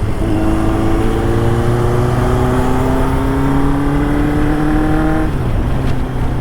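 Motorcycle engine with a dB killer fitted in its exhaust, running on the road. Its note rises steadily for about five seconds as it accelerates, then drops away suddenly as at a gear change, over a steady low hum.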